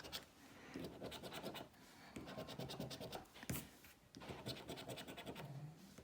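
Scratch card being scratched, its coating rubbed off in quick back-and-forth strokes, in several short bouts with brief pauses between.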